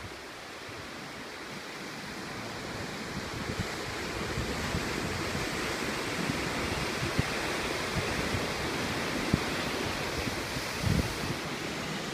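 Sea surf breaking and washing over shoreline rocks: a steady rushing that swells over the first few seconds. Wind buffets the microphone with deep thumps, most strongly about eleven seconds in.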